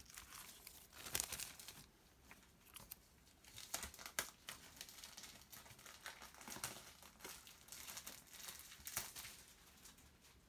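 Clear plastic wrapper crinkling and rustling on and off as it is handled and opened, faint, with sharper crackles now and then.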